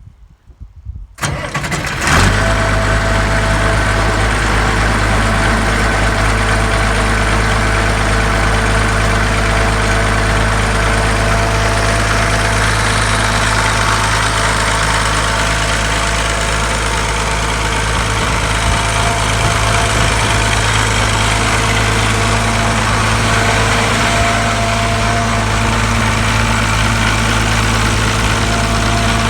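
Engine cold start: it cranks for about a second, catches about two seconds in, then settles into a steady idle.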